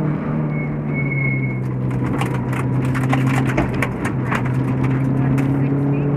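Subaru WRX STi rally car engine heard from inside the cabin on a gravel stage, running steadily, with a stretch of sharp clattering from gravel striking the car in the middle. Near the end the engine pitch rises as the car accelerates.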